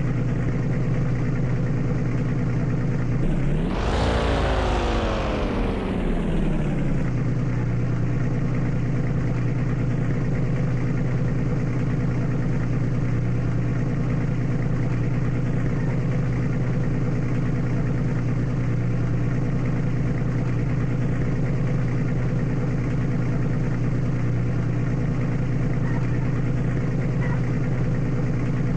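Bentley Bentayga SUV's engine running steadily. About three seconds in, one brief rev rises in pitch and falls back over a few seconds.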